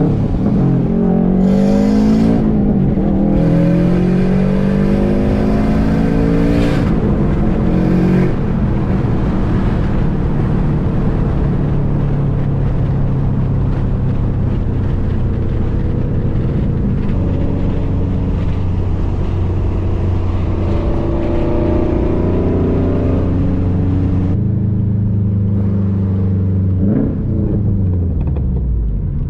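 Subaru WRX STI's turbocharged flat-four with its boxer rumble and external wastegate, pulling hard up through the gears. The engine note climbs twice in quick succession, with a brief hissing burst as each pull ends. It then settles to a steady cruise, climbs once more, cuts back suddenly and winds down near the end.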